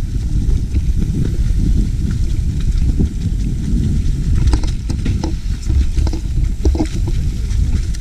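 Mountain bike ridden over a rough dirt trail: a heavy, steady low rumble with scattered sharp knocks and rattles as it bounces over roots and rocks.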